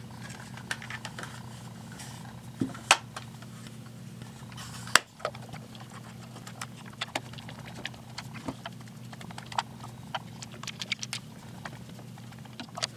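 Small clicks, taps and scrapes of a screwdriver turning small screws into the hard plastic housing of an animatronic toy bear. Two sharper clicks stand out about 3 and 5 seconds in, with a busier run of small ticks in the second half, all over a steady low hum.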